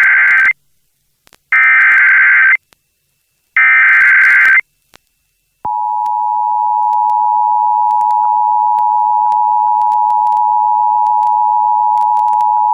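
Emergency Alert System header: short bursts of digital data tones, about a second long and a second apart, the first already under way and two more following. After a pause of about a second, the steady two-tone EAS attention signal starts about six seconds in and holds, announcing a severe thunderstorm warning.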